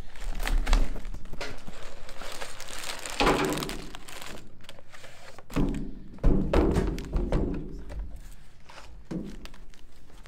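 A cardboard Lego box being opened and emptied: plastic parts bags and paper crinkle and rustle, then several dull thuds about halfway through as the box and bags land on the cloth-covered table.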